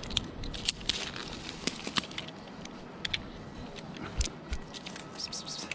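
Tree-climbing rope gear and pine branches handled during a rope ascent: irregular clicks, scrapes and crackles, with a couple of dull knocks a little after four seconds in.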